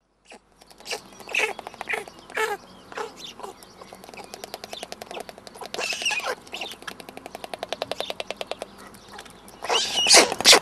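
White storks at the nest, bill-clattering: a fast, even run of clicks from about four to nine seconds in, with scattered louder clacks and short bursts before and after.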